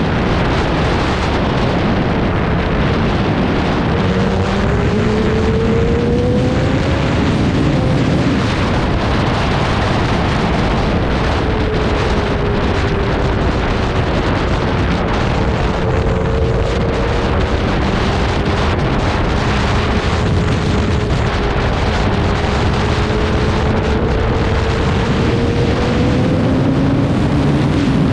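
Heavy wind rushing over the microphone while riding a Yamaha R6 sportbike, with the bike's inline-four engine note faint beneath it, its pitch slowly rising and falling.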